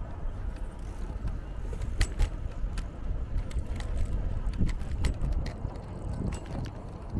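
Scooter rolling along a path: a steady low rumble from the wheels and wind on the microphone, with frequent sharp clicks and rattles.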